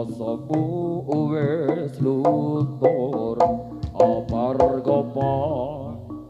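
Live Javanese jaranan music: frequent sharp hand-drum strokes under a wavering, ornamented melodic line.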